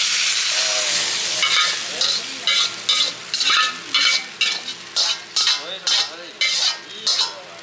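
Hot food sizzling in a wok, then a metal ladle scraping and clanking against the wok about twice a second as the stir-fried jjajang is pushed out onto a plate; each stroke rings briefly.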